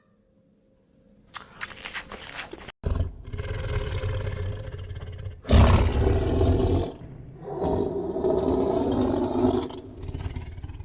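A large animal's loud, rough calls: long drawn-out bellows, the loudest about halfway through, then one more before the end.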